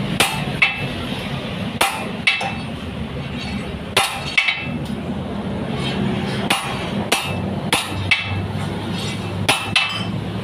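Hammer blows on a steel square bar being straightened on a steel bench: about a dozen sharp metallic strikes, mostly in quick pairs a few seconds apart, each with a brief ring. A steady low hum runs underneath.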